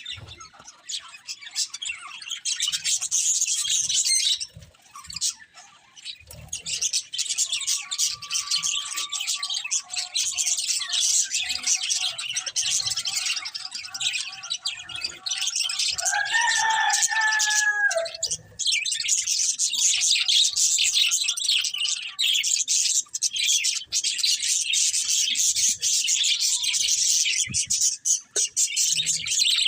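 Budgerigars chirping and chattering continuously in rapid, high-pitched warbles. A lower, drawn-out call comes a little past halfway.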